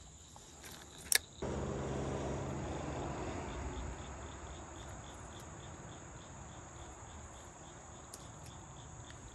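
Insects chirping: a steady high whine with a fainter pulsing chirp above it. A sharp click comes about a second in, and just after it a low rumble starts suddenly and fades away over the next few seconds.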